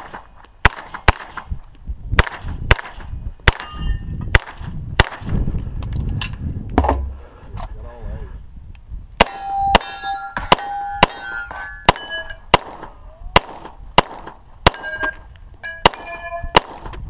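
Rapid gunfire at steel targets, with the struck plates ringing after many of the hits. Rifle shots come first; after a break of about two seconds near the middle, a quick string of pistol shots follows.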